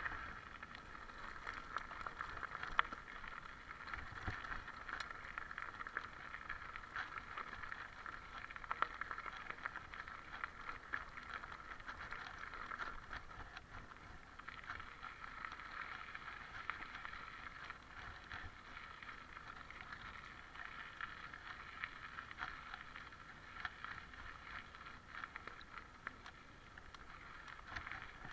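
Mountain bike rolling steadily over a gravel and dirt forest track: tyre noise on the gravel, with frequent small clicks and rattles from stones and the bike.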